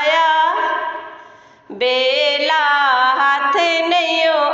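A woman singing a Punjabi devotional shabad in long, drawn-out notes with a wavering, ornamented pitch. The voice fades out about a second in and comes back loud just before two seconds.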